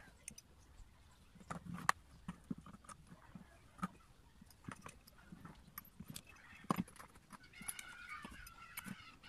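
Light clicks and knocks of plastic and metal parts as an electric planer's housing and pulley parts are handled and fitted back together. Near the end a faint, wavering animal call starts up in the background.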